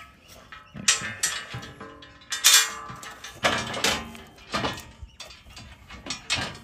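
Irregular metallic clinks and knocks, about eight in all, the loudest about two and a half seconds in: bolts, washers and a metal bash plate being handled and offered up against a 4x4's underbody.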